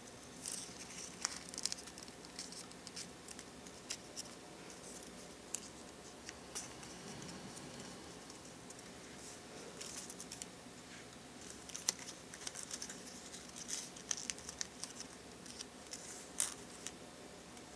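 Folded origami paper crinkling and rustling faintly as fingers pinch and shape it, in scattered small crackles and clicks that come in clusters.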